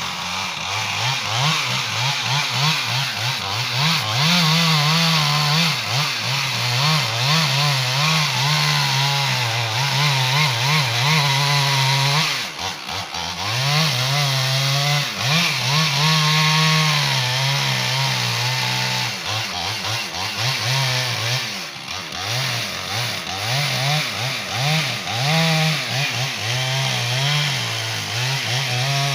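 Chainsaw running at high revs while cutting into a tree, its pitch wavering up and down as it works in the cut, easing off briefly about twelve seconds in and again about twenty-two seconds in.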